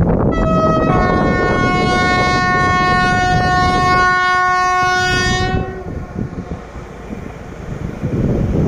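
Locomotive horn sounding as the train approaches a level crossing: a short blast, then a long steady blast of about four and a half seconds that cuts off. Wind buffets the microphone underneath.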